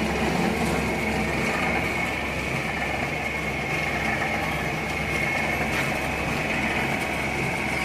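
Solid-bar chamfering machine running steadily, with a steady high whine over a low hum and no cutting strokes.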